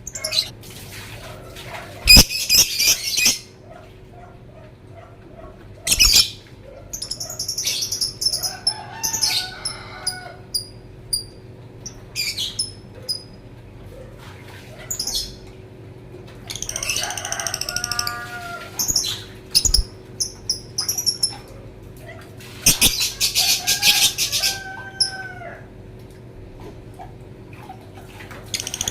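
Lovebird calling in repeated shrill, high-pitched bursts of chatter, each a second or two long, with short chirps in between. A few sharp knocks are mixed in.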